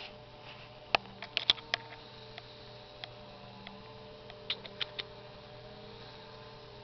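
A handful of sharp clicks in two clusters, about a second in and again about four and a half seconds in, over a steady low electrical hum.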